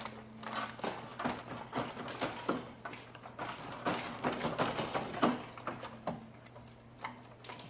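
A screw being driven by hand into a metal monitor-mount bracket: irregular small clicks and knocks of the tool and metal parts, over a steady low hum.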